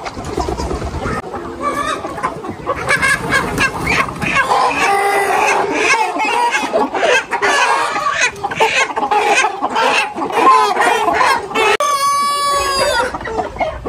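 A large flock of chickens and roosters clucking and calling over one another, with crowing among them. One long, clear call stands out near the end.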